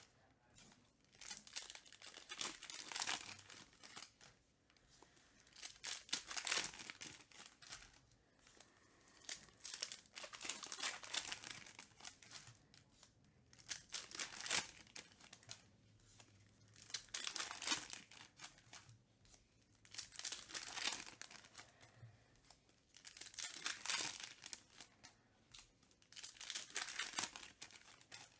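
Trading-card pack wrappers crinkling and tearing as packs are opened and the cards handled, in repeated bursts every few seconds.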